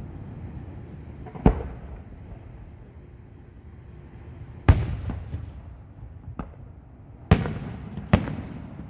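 Aerial fireworks shells bursting in a display: about five sharp booms at irregular intervals, each trailing off in an echoing rumble. The loudest come near the middle and toward the end.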